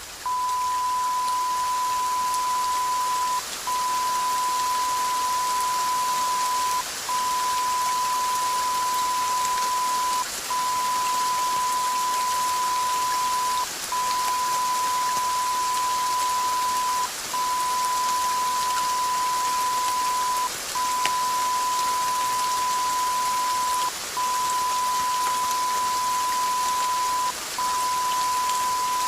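A steady, high-pitched beep tone held for about three seconds at a time, broken by a short gap roughly every three and a half seconds, over a constant static-like hiss.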